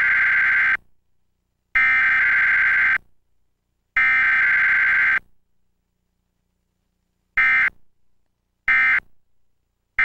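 Emergency Alert System SAME data tones from a DASDEC encoder: three header bursts of about a second each, then three short end-of-message bursts about a second apart, with silence between the bursts.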